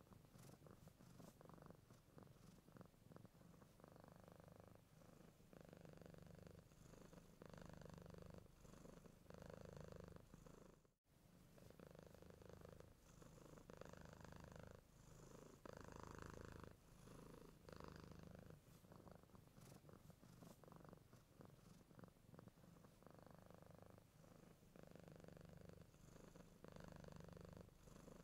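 Mother cat purring softly and steadily while her kittens nurse, the purr swelling and fading in even pulses about every second and a half. It drops out for an instant a little before the middle.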